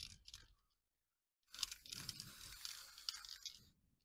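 Aerosol spray-paint can hissing for about two seconds as blue paint is sprayed onto the edges of a book's text block.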